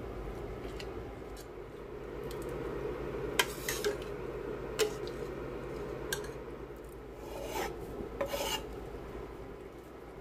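Stirring and scraping of a thick lentil soup in a stainless steel pot, with several sharp clicks of utensils knocking against the pot.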